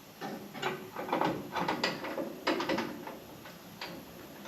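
Sheet-metal repair parts being handled and fitted against the VW Bus body: a string of irregular clicks and knocks, busiest in the first two seconds and thinning out toward the end.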